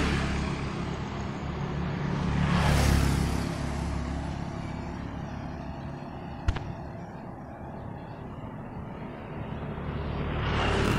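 A motor scooter passes close by at the start, and another vehicle rushes past about three seconds in, over a steady hum of road traffic; a third begins to approach near the end. One sharp click sounds a little past the middle.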